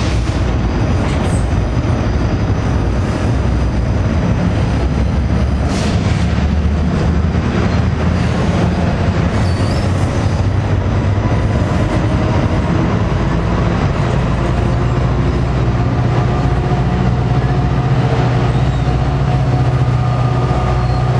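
NJ Transit commuter train of double-deck coaches rolling past close by, its wheels rumbling steadily on the rails, with a few sharp clicks in the first several seconds. A low engine drone builds over the last several seconds.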